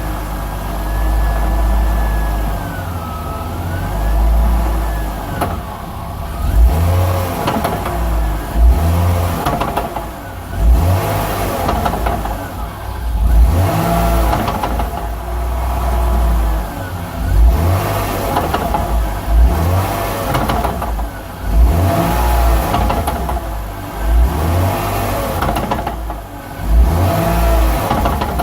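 BMW E46 320 coupe driving with the engine pitch rising and falling over and over, as if on and off the throttle. Loud short clunks come every two to three seconds; the owner puts these clunks down to the differential.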